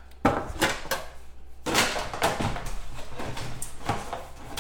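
Trading cards and their packaging being handled: irregular clicks, taps and rustling, with a sharp knock about a quarter second in and busier rustling and clicking from near the middle on.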